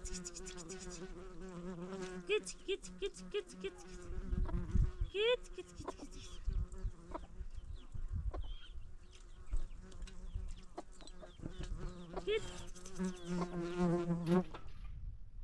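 A flying insect buzzing, its hum steady but wavering and gliding up in pitch now and then, with scattered clicks. The buzzing stops abruptly shortly before the end.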